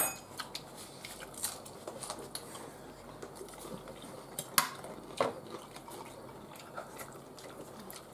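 Forks clinking and scraping against a metal baking tray of nachos: a scattering of sharp clicks, the loudest right at the start and about four and a half seconds in.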